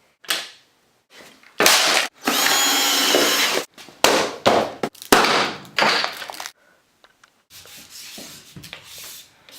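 A package being torn and pulled open: a series of loud rasping, ripping noises, one of them drawn out for over a second, then fainter rustling.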